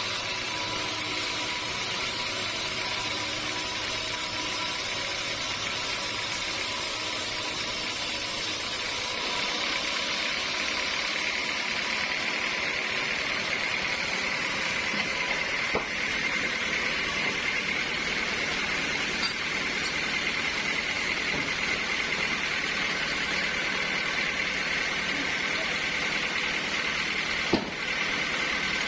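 Sawmill running steadily with an even high whine, which grows stronger about nine seconds in. A single sharp knock comes near the end.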